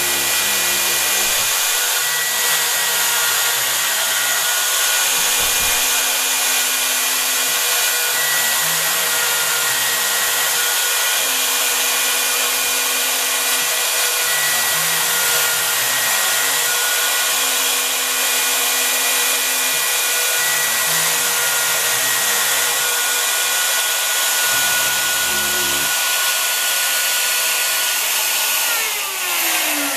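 The router spindle of a home-built CNC machine runs with a steady high whine while its bit carves a wooden door architrave block. The stepper motors hum in shifting tones underneath as the cutter moves. Near the end the whine falls steadily in pitch as the spindle spins down.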